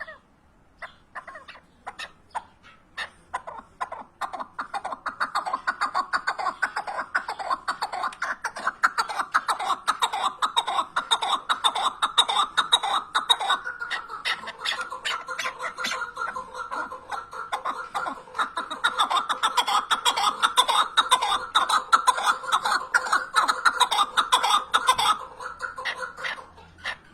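Chukar partridge calling: a series of clucking notes that begins slow and sparse, speeds up into a fast, dense, rhythmic run from about four seconds in, and breaks off shortly before the end.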